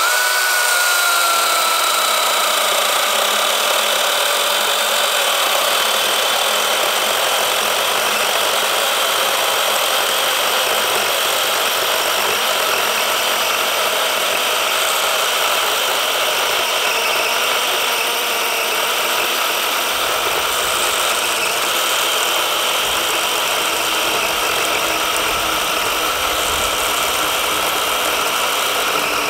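Battery-powered DeWalt DCCS620 chainsaw, fitted with an 18-inch bar and chain, cutting slowly down through a thick log. It runs as a steady electric motor whine over chain-on-wood noise. The whine starts abruptly and sinks in pitch over the first few seconds as the chain bites under load, then holds steady.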